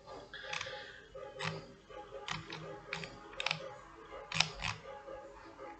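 Computer mouse clicking about eight times, in single or paired sharp clicks spread unevenly over the first five seconds, while the mouse scrolls through a menu.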